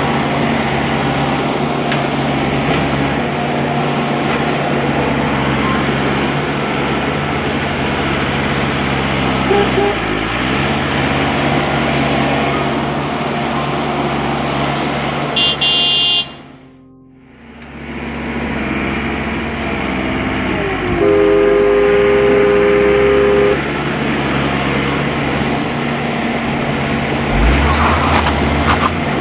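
An engine running steadily. The sound drops away briefly around the middle. A little later a horn sounds for about two and a half seconds as one steady two-note blast.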